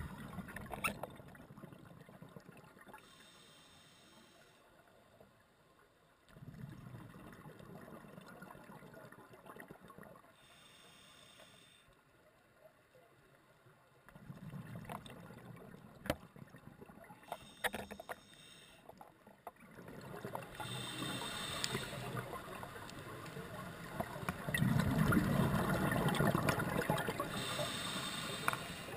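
Underwater scuba breathing through a regulator: slow cycles of bubbling exhalations with softer hissing inhalations between them. The bubbling grows louder toward the end.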